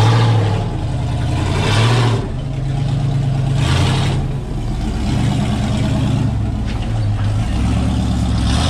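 Rock buggy's engine revving up and down as it crawls over boulders and up a rock ledge, with stronger surges near the start, about two seconds in and about four seconds in.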